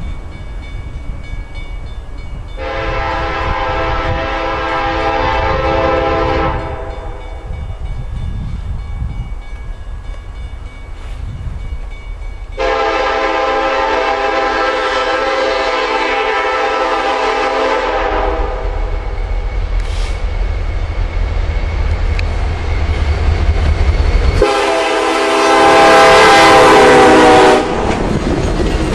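Freight locomotive air horn sounded by CN 5789, an EMD SD75i, as the train approaches: three long blasts, the last the loudest. Between blasts the low rumble of the diesel locomotives grows as they near, and they pass close by at the end.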